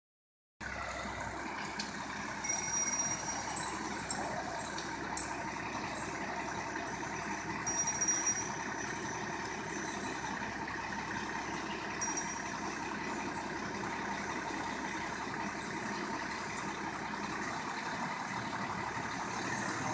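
Fire engine running steadily, with short high-pitched beeps three times, about 2.5, 8 and 12 seconds in.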